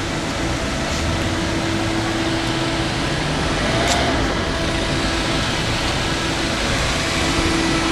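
Steady outdoor city hum of traffic and a machine such as an air-conditioning unit, holding one steady tone, with a single short click about four seconds in.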